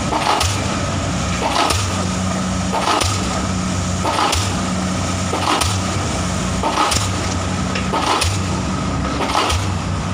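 Cobelco hydraulic excavator's diesel engine running steadily, with a short hissing clatter that comes back about every 1.3 seconds.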